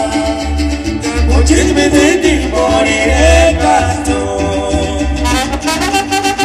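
Pirekua, a Purépecha song, played by a small orchestra of brass, guitar and double bass, with a melody over a steady bass line.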